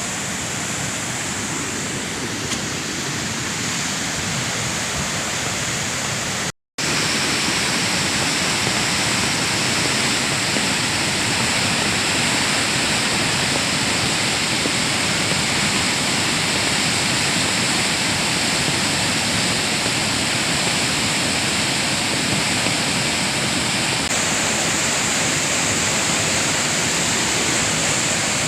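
Steady rushing of a river in heavy flood mixed with heavy rain, a dense, unbroken noise. It drops out for an instant about six seconds in, then goes on a little louder.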